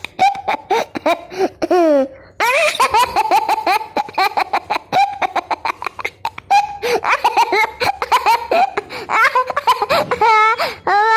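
Baby laughing hard: rapid runs of high-pitched giggles and belly laughs, with a brief break about two seconds in.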